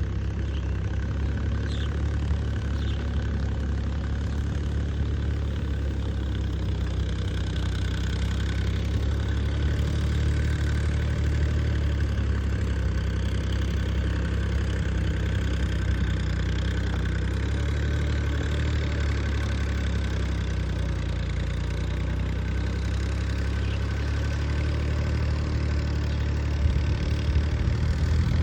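A steady low mechanical drone, like a motor running, with a hum that drifts gently up and down in pitch and grows a little louder and rougher near the end.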